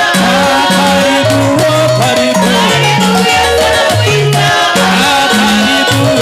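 Upbeat gospel worship band music: a bass line stepping between notes under gliding melodic lines, with percussion ticking steadily on the beat.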